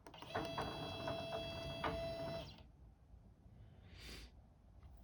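Stepper motors of a DIY CNC router running, a steady whine of several high tones with a few ticks, stopping about two and a half seconds in. A short hiss follows about four seconds in.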